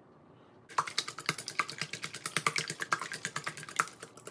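Wire whisk beating raw eggs in a glass mixing bowl, its wires clicking rapidly against the glass, starting just under a second in.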